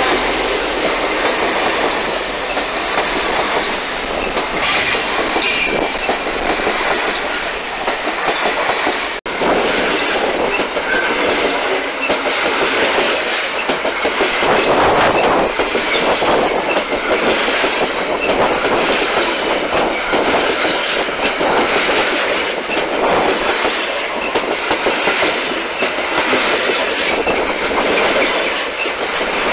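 Grain hopper wagons of a freight train rolling past close by, their steel wheels clattering steadily on the rails. A brief high wheel squeal comes about five seconds in.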